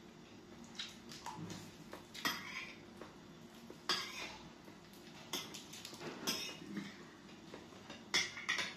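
Spoon and fork clinking and scraping against plates during a meal, in irregular short clinks spread through the stretch.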